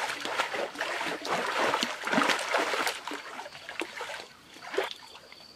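Water splashing and sloshing as a person swims and kicks in a small pool. It is busiest for the first three seconds, then dies down to light lapping and drips.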